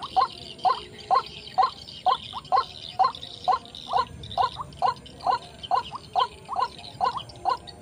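White-breasted waterhen calling: one short note repeated about twice a second in an even, monotonous series, over a steady high hiss.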